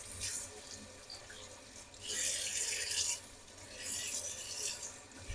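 Vegetables, likely potatoes, being rinsed and rubbed by hand under a running kitchen tap, with water splashing into the sink. The water comes in two louder spells of about a second each, a little after the start and again near the end.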